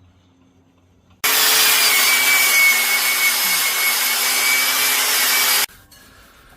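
A power tool runs loudly for about four and a half seconds, starting and stopping abruptly: a harsh rasping noise with a steady whine in it. This is typical of a tool cleaning rust off a drill press column.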